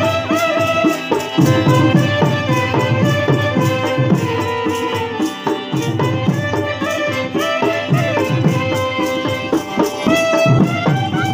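Live folk music: a stringed instrument played close by, its melody moving in quick steps over a steady hand-drum beat.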